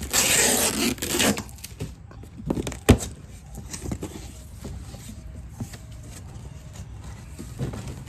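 Packing tape on a cardboard box being slit and torn open, a loud rasping tear for about the first second, then a single sharp snap about three seconds in, followed by soft rustling of the cardboard flaps being pulled open.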